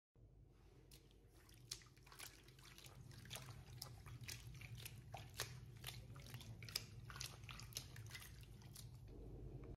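A wet, soapy wig being squeezed and kneaded by hand in a basin of water: quiet, irregular squelches and crackling of lather and bubbles over a faint low rumble.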